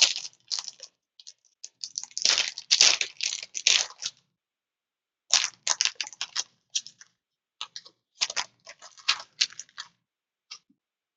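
Trading cards and their packaging being handled: an irregular run of rustles, scrapes and crackles, with a short pause about four seconds in and a last faint tick near the end.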